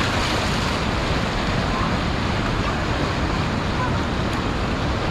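Ocean surf breaking and washing up the shore in a steady rush, with wind on the microphone.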